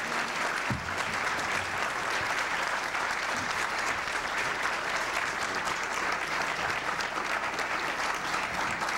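Audience applauding, many hands clapping at an even level.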